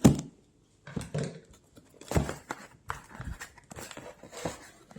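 Cardboard mystery box being handled and opened: a sharp knock at the start, then scattered knocks and rustling of cardboard and packaging.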